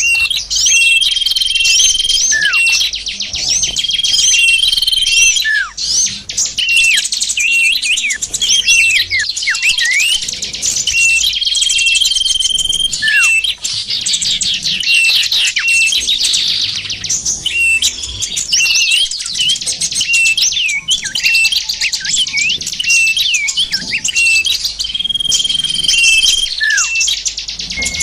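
Dense, high-pitched chirping and twittering of many small songbirds, a bird-lure (pikat) call recording played to attract small birds. A short, level trill recurs every few seconds among quick chirps and a few falling whistles.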